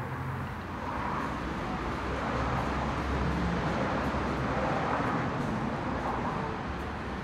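Steady low rumbling background noise with an even hiss above it and no distinct events.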